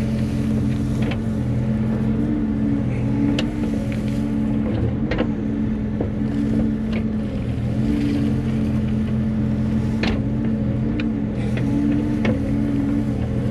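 Bobcat E35 compact excavator's diesel engine running steadily while digging. Several brief sharp clanks sound through it.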